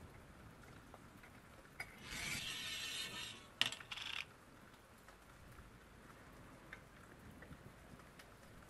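A scraping, rubbing noise on metal for about a second and a half, then a single sharp click and another brief scrape.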